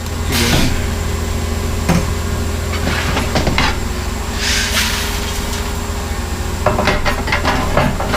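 Scattered knocks, clicks and clatter from handling a grain moisture tester and its corn sample, with two short rushing bursts like kernels being poured. A steady low hum of running farm machinery lies under it all.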